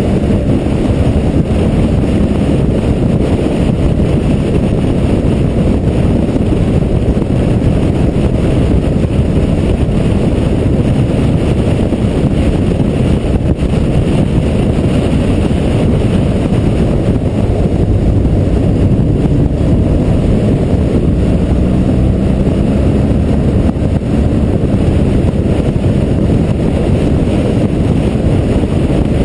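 Steady wind rumble on the microphone of a BMW motorcycle riding at road speed, with the bike's engine and tyres running under it.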